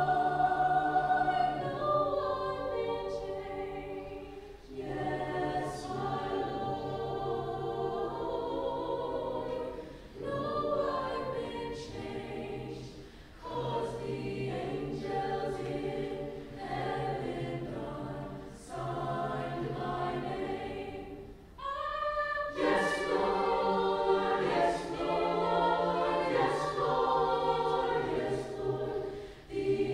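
High school mixed chorus, singing through face masks, performs a gospel spiritual in full sustained chords. The phrases break off and re-enter about every two seconds, with crisp consonants at the phrase edges.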